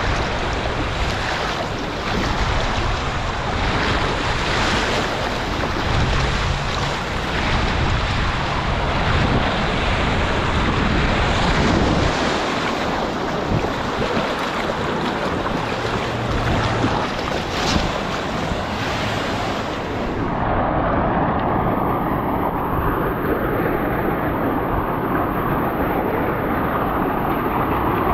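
Water rushing and splashing around a tube sliding down an open fibreglass water-slide flume, with wind on the microphone. A little over twenty seconds in it cuts abruptly to a steadier rush of water pouring down the start of the slide.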